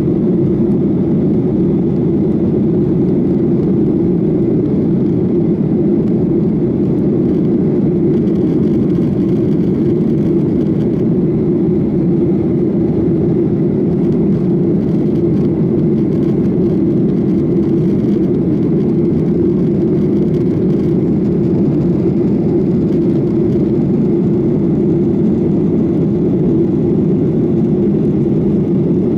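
Boeing 737-800's CFM56 jet engines running steadily at climb power, an even, continuous noise without changes in pitch or level.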